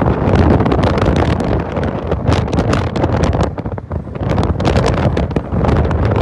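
Strong wind buffeting the microphone: a loud low rumble with crackling gusts, dipping briefly about four seconds in.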